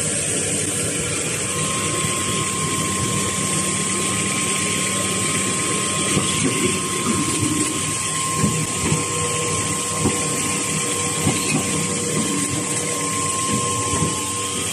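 Facial tissue production line machinery running: a steady mechanical hum with a constant whine. From about halfway through, irregular clacks and knocks from the packing machine's moving parts come in.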